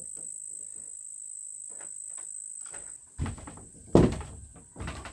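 Steady high-pitched drone of insects chirring, then about three seconds in two loud thumps, the second the loudest.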